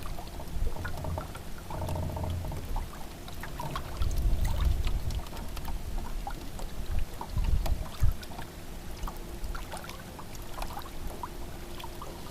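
Small boat on the water: uneven low knocks and thumps with water noise and scattered light clicks.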